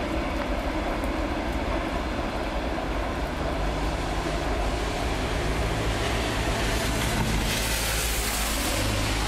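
Electric multiple-unit commuter train passing, a steady rumble of wheels on rail with a low hum; the hiss in the high end grows from about six seconds in as the cars go by.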